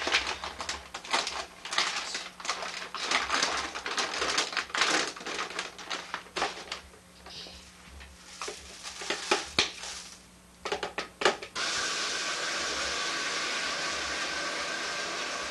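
Aquarium gravel clicking and rattling, with a paper bag crinkling, as spilled gravel is scooped up by hand. About eleven seconds in, a steady rush of shower water starts suddenly and keeps running.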